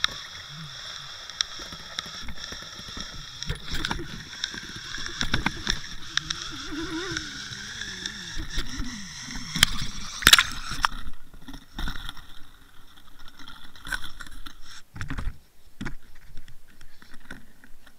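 Water rushing and gurgling past a Water Wolf underwater camera towed on an umbrella rig while a hooked bass is reeled in. After about eleven seconds the steady rush gives way to scattered knocks and clicks as the rig and fish come out of the water and are handled.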